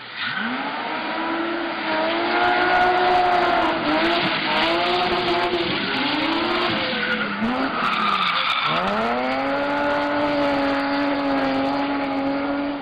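BMW E36 drift car's engine revving hard and lifting off again and again while it slides sideways, tyres squealing. About nine seconds in the revs climb back up and are held high.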